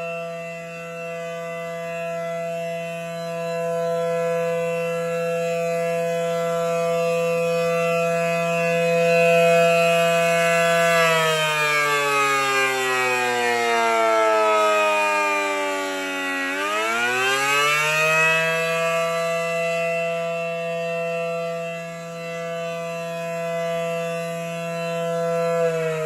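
ACA P-10 rotating outdoor warning siren sounding its test, loud, holding a steady tone that swells and fades slowly as the head turns. About eleven seconds in the pitch slides down for several seconds, then climbs back quickly to the steady tone, and near the end it begins sliding down again.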